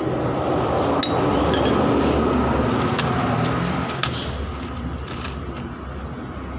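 Steady rumble of road traffic, with a few sharp metal clinks from tools and scooter CVT parts being handled, about one, three and four seconds in.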